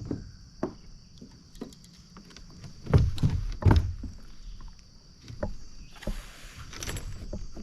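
Knocks and thumps against a kayak's hull, with two loud thumps about three seconds in and a brief hiss near the end, over a steady high insect drone.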